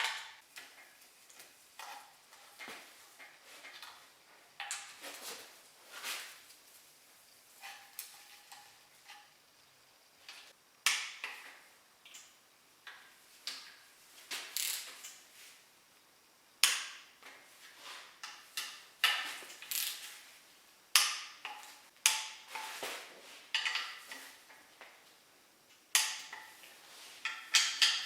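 Hand tools, bolts and metal engine parts clinking and clanking in scattered sharp clicks, irregularly spaced and a second or two apart, as parts are bolted onto the bottom of an engine.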